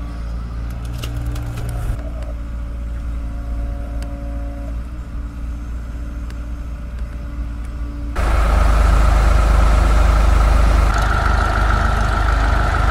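Heavy diesel machinery engine running steadily. About eight seconds in, the sound jumps suddenly louder and rougher, with a high whine over the engine.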